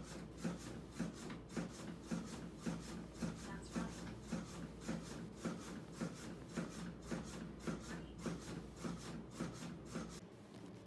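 Chest compressions on a CPR training manikin, a steady train of short knocks about two a second, at compression pace. They stop shortly before the end.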